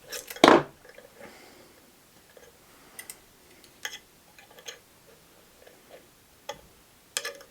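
Light clicks and taps of a small bent metal trigger piece and tools being handled on a workbench, with one louder clatter about half a second in.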